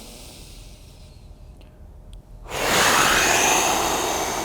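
A person breathing deeply: a soft inhale through the nose, then about two and a half seconds in a loud sighing exhale through the mouth that slowly fades. It is a yoga clearing breath.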